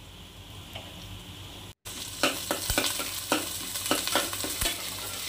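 Shallots, fenugreek seeds and curry leaves sizzling in hot oil in an aluminium pot. After a brief break, a metal spatula stirs them, scraping and knocking against the pot over the frying.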